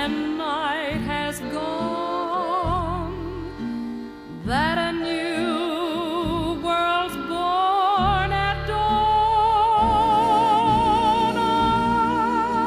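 Music: a melody line with a wide vibrato over sustained low chords, with a swooping upward glide about four and a half seconds in.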